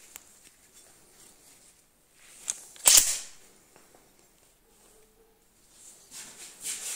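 Quiet handling noises with a single sharp snap about three seconds in, the loudest sound here, a few lighter clicks, and some rustling near the end.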